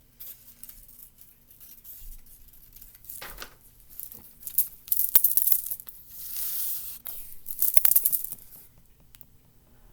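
Scissors cutting a paper sentence strip, with paper rustling. The sound comes as a few clicks at first, then several short hissy bursts of snipping and crinkling in the second half.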